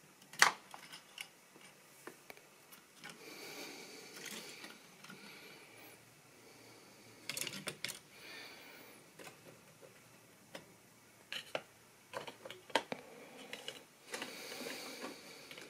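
Model railway rolling stock running on the track, giving irregular light clicks and ticks as the wheels pass over rail joints.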